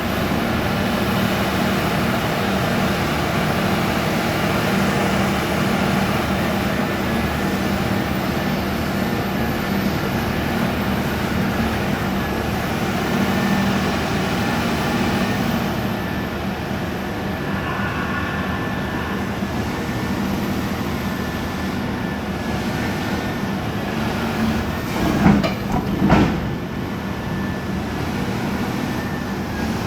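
Caterpillar excavator's diesel engine running steadily with a constant hum. About 25 seconds in come two louder, brief sounds whose pitch bends up and down.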